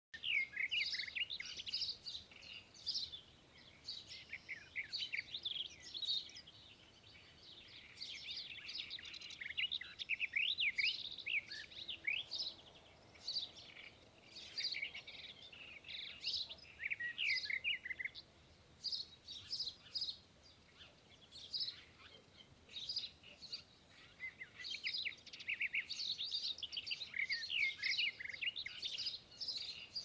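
Small birds chirping, a busy run of quick, high, sliding notes in bursts with short lulls between.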